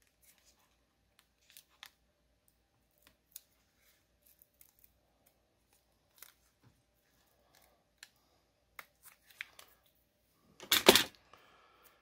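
Adhesive foam pad being peeled off a laptop battery: faint scattered picking and scratching sounds, then a short loud rip near the end as it comes free.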